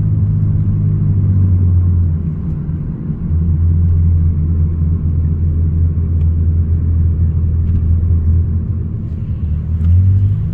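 A car on the move, heard from inside the cabin: a steady low engine and road drone that eases briefly about three seconds in and again near the end.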